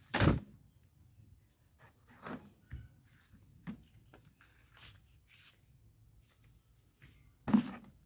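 Hollow knocks of plastic toy guns being handled in a plastic bucket full of toy guns. There is a loud knock right at the start, a few lighter ones in the middle, and another loud knock near the end.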